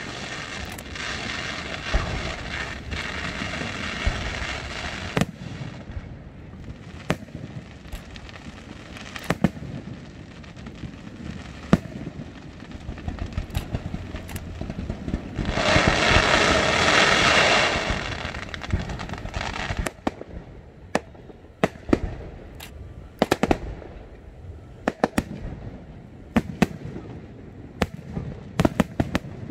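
Electrically fired fireworks display: sharp single bangs go off at irregular intervals, with a dense crackling hiss in the first few seconds and a louder, longer one about halfway through.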